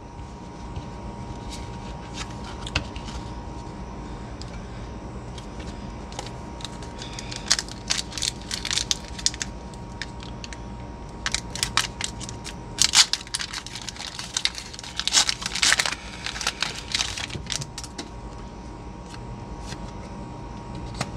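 Foil wrapper of a Pokémon Sword & Shield booster pack being torn open and crinkled by hand. It comes in several bursts of sharp crackling through the middle.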